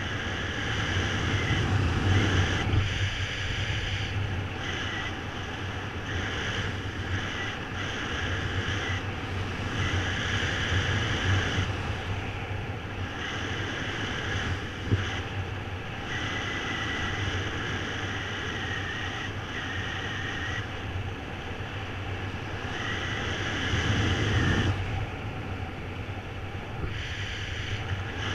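Wind rushing over the microphone of a camera on a paraglider in flight: a steady airflow noise that swells and eases, with a faint high whistle coming and going.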